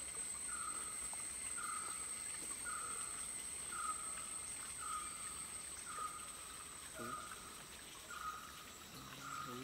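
Insects calling in dense vegetation: a steady high-pitched whine. A short buzzing call repeats evenly through it, about every three-quarters of a second.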